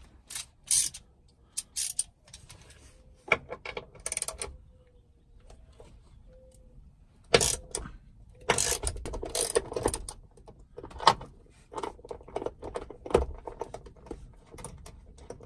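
Hand ratchet wrench with a 13 mm socket loosening a bolt: short bursts of clicking and metallic clinks and rattles, busiest about halfway through.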